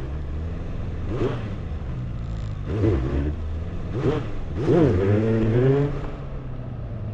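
Motorcycle engine idling, with four quick throttle blips. The last blip, about five seconds in, is held and climbs for about a second as the clutch is let out for a clutch up, a small front-wheel lift.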